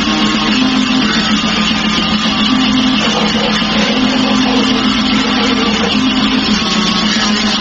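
Grindnoise music: a loud, constant wall of noisy guitar over a low droning note that shifts between two pitches every second or so.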